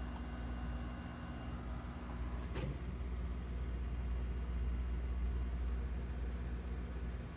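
Steady low rumble with a faint hum, and one short sharp click a little over two and a half seconds in.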